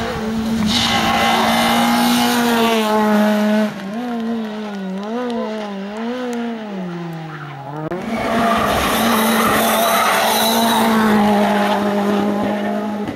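Rally car engines at full throttle on a stage. The first engine holds a steady high note, then its pitch swings up and down several times and drops away. About eight seconds in it gives way abruptly to another car's engine held high and steady.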